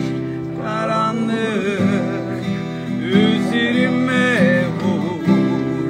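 Two acoustic guitars playing chords while a man sings a melody with wavering held notes.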